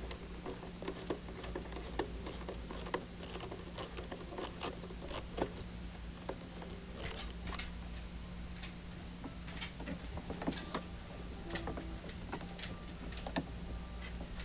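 Light, irregular clicks and ticks of a screwdriver working the terminal screws of a Renogy Rover MPPT charge controller as solar panel wires are fitted and handled, over a faint steady low hum.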